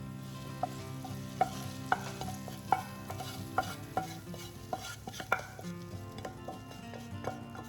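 A utensil stirring food in a hot pan, with light sizzling and a dozen or so sharp clinks of the utensil against the pan at irregular intervals.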